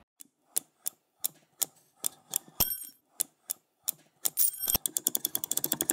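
Keystrokes on a mechanical number pad with Wisteria switches: single presses spaced a fraction of a second apart, then a quick run of presses from about four seconds in. Two of the presses carry a brief high metallic ring.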